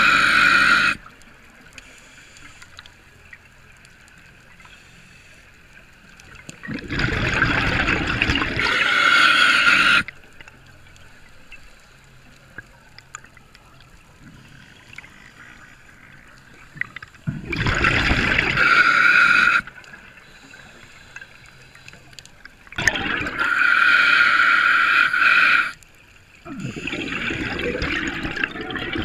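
Scuba regulator exhaust: a diver's exhaled air bubbling out in bursts of two to three seconds, with quiet gaps between breaths.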